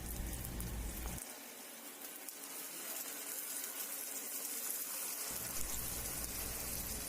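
Paniyaram batter sizzling in hot oil in the wells of a paniyaram pan as it is poured in: a faint, steady hiss.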